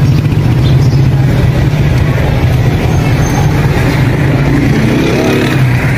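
A steady low mechanical drone, like a motor running, that holds level throughout.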